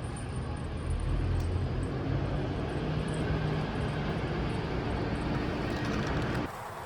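A vehicle running: a steady engine hum and rushing road noise that swell about a second in and cut off abruptly near the end.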